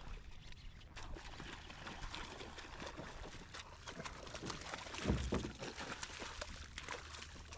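Water splashing and trickling in a dense crackle of small splashes and drips, with one louder splash or thump about five seconds in.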